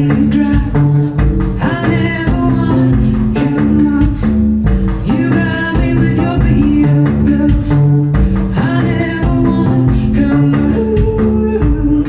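Recorded music played back through Martin Logan loudspeakers in a hi-fi demonstration room, with a steady melodic line over a bass line.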